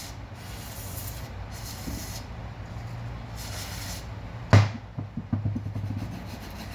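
Aerosol cleaner sprayed in three short hissing bursts onto the printer board's freshly desoldered USB port pads to clean off residue, followed by a single sharp knock about four and a half seconds in and a few light taps.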